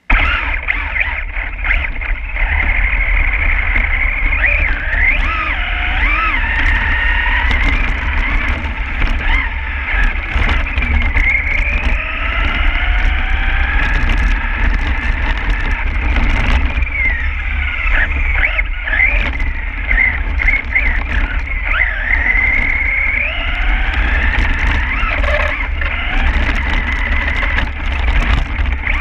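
Radio-controlled truck driving through slush, heard from a camera mounted on it: its motor and gears whine, the pitch rising and falling again and again with the throttle, over a steady rumble of tyres and vibration, with scattered clicks and knocks.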